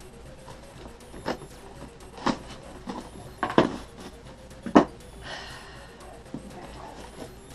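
Cardboard shipping box being opened with a box cutter: the blade slicing and catching on the packing tape, with about five sharp knocks against the cardboard. A short rustle of the flaps being pulled open comes about five seconds in.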